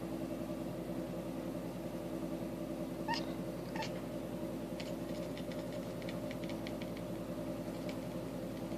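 Pet cat making two short chirping calls about three seconds in, followed by a run of rapid faint clicks, over a steady low hum.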